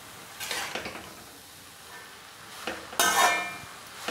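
A perforated steel skimmer spoon scraping and clanking against a metal kadai as stir-fried noodles are tossed and mixed, with a faint sizzle underneath. There is a short burst of scraping about half a second in, and a louder, ringing one about three seconds in.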